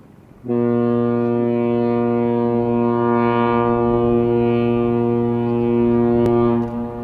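Ship's horn sounding one long, steady, low blast.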